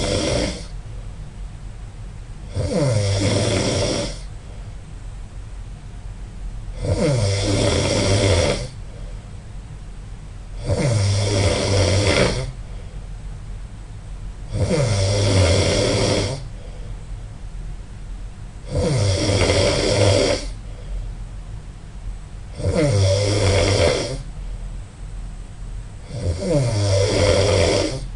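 A person snoring loudly and rhythmically, one long snore about every four seconds, each starting with a falling pitch, with quieter breathing between snores.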